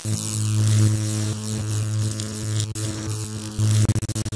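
Electric buzz of a neon sign sound effect: a steady low mains-style hum with crackling hiss, breaking into rapid stuttering clicks near the end as it flickers.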